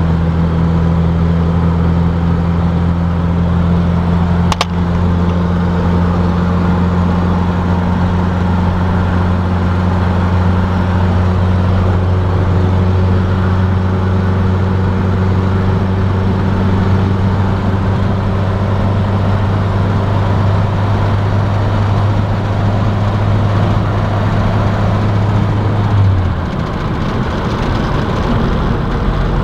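Jeep pickup's engine and exhaust droning steadily at highway speed, heard from inside the cab with road noise. A single click comes about four and a half seconds in, and near the end the low drone drops away as the truck eases off.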